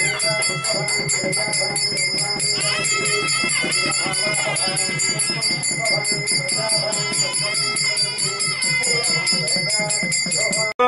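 Devotional music with bells jingling in a fast, even rhythm and a melody line over it. It cuts off abruptly just before the end.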